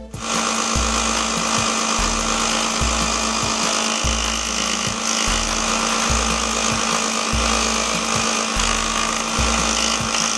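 Bench belt sander running with a carved wooden toy car body pressed against its abrasive belt: a steady, loud sanding hiss over the motor's hum, beginning abruptly at the start.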